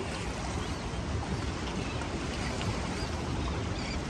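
Steady, low rushing noise of wind and water at the waterside, with faint short high chirps now and then.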